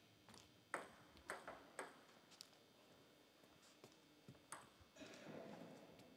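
A table tennis ball bouncing with light, sharp clicks: three about half a second apart around a second in, then a couple more spaced out later. A brief faint rush of noise follows near the end.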